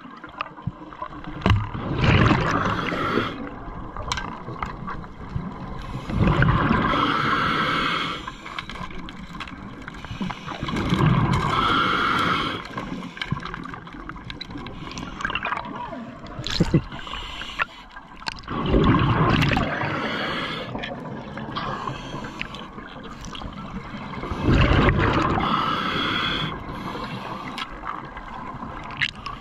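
Scuba regulator breathing heard underwater: hissing inhalations and bubbling exhalations, one breath every few seconds, with a few sharp clicks.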